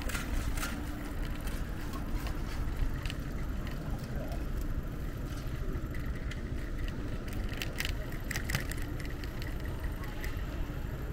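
Wind rumbling on the microphone and city street traffic noise on a bicycle ride, with scattered light clicks and rattles.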